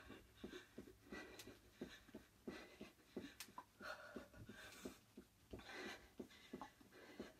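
Faint, quick soft thuds of feet landing on a rug in a rapid, uneven rhythm during mountain climbers, with heavy breathing from the exertion.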